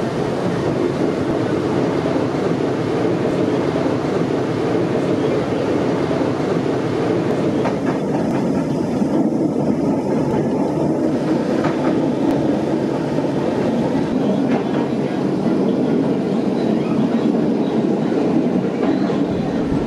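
Renfe UT-440 electric multiple unit heard from inside while running: steady rolling noise of wheels on rails, with some clicking over rail joints.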